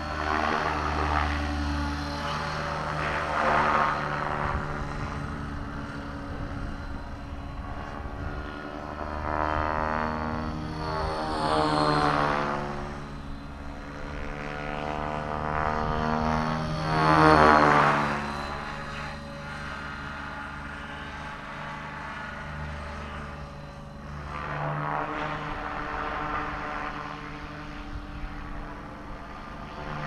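Electric Align T-Rex 600 RC helicopter in flight: the steady whine of its brushless motor and drivetrain with main-rotor blade noise, swelling and sweeping in pitch as it passes close, loudest about 12 and 17 seconds in. Wind rumbles on the microphone underneath.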